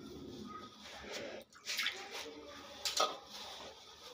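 A hand mixes jowar flour with water in a stainless steel bowl, making a soft, wet rubbing and scraping against the metal. There are sharper scrapes a little under two seconds in and again about three seconds in.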